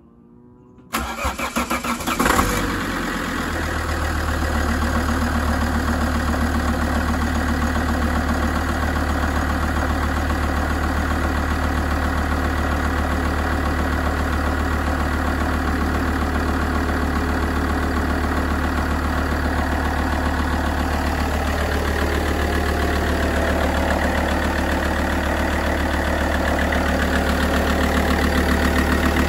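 Alfa Romeo 166 2.4 JTDm five-cylinder common-rail diesel being started: the starter cranks about a second in, the engine catches with a brief flare just after two seconds, then settles into a steady idle for its warm-up.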